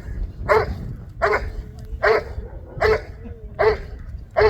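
A dog barking steadily, five sharp barks about one every three-quarters of a second, with a faint thin whine between some of them.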